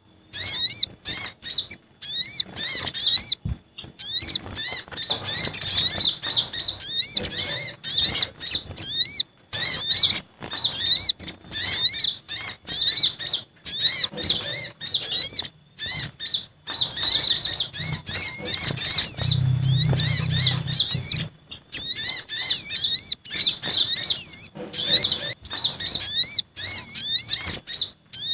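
Sunbirds (sogon and konin, also called kolibri ninja) calling in an agitated way on a bird-lure recording: rapid, high-pitched chirps in fast runs, broken by short pauses.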